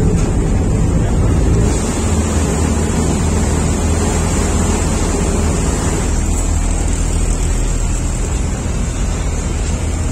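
Steady low drone of a passenger ferry's engines with water noise. Wind rumble on the microphone eases about two seconds in, leaving a steadier engine hum inside the ferry's cabin.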